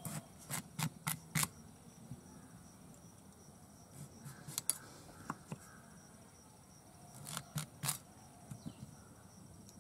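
Pumpkin being sliced on a bonti's curved blade: crisp cutting strokes as the rind and flesh are pushed through the blade. There are about four quick strokes in the first second and a half, another group around the middle, and a last pair near the end.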